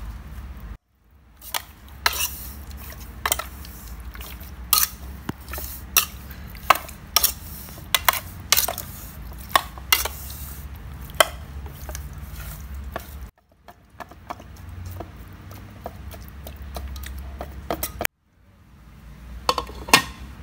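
A metal spoon and raw chicken wings knocking against a metal pot as seasoning is stirred in and the wings are mixed, in irregular clinks and knocks over a low steady hum.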